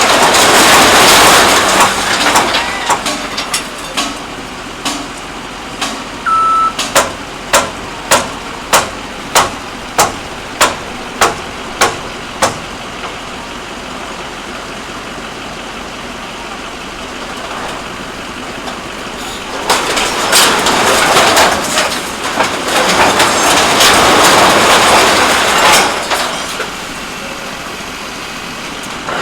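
Heavy repair work on a scrap-metal crusher: a run of about ten sharp strikes, a little under two a second, between stretches of loud, even rushing noise.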